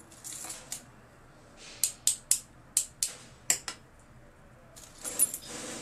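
Small sharp metallic clicks, about eight in two seconds, as the small parts of a GMC Yukon key cylinder are handled and fitted, with a short scraping, rubbing sound near the end.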